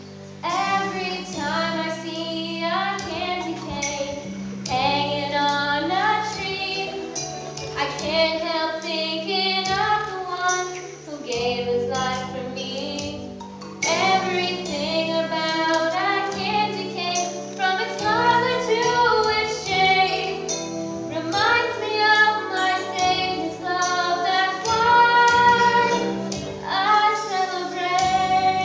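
Children singing a song with instrumental backing, starting about half a second in.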